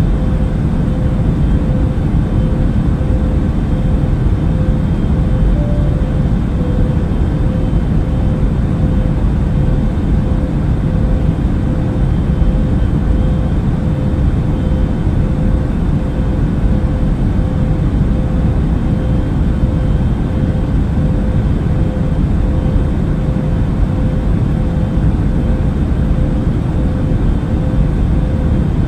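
Airplane noise used as a relaxation sound: a steady, deep rumble and rush that never changes, with a faint hum held at one pitch.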